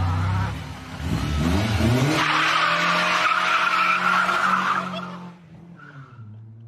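A vehicle engine revs up, then a loud screech that sounds like skidding tyres follows for about three seconds and fades out.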